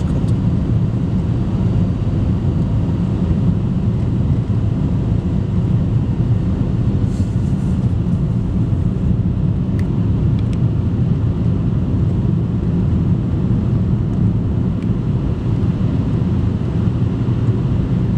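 Car driving through a road tunnel: a steady low rumble of engine and tyres on the road, with an even level throughout.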